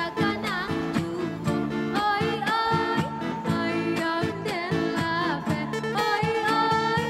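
Background music: a voice singing over a plucked-string accompaniment with a steady beat.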